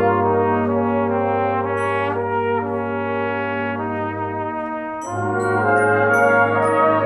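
Geneva Cardinal Professional cornet playing a slow, smooth melody of held notes over a low sustained accompaniment. There is a brief break about five seconds in, after which the playing comes back louder.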